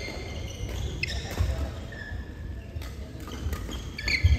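Badminton doubles rally: rackets striking the shuttlecock, with court shoes squeaking and feet thudding on the court mat. The loudest thuds and squeaks come near the end as a player lunges.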